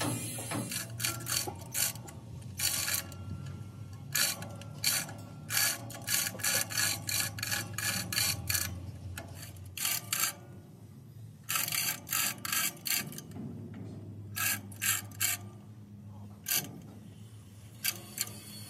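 Steel chain clicking and rattling in quick runs of sharp metallic clicks, with pauses between runs, as chains around a truck axle are worked by hand.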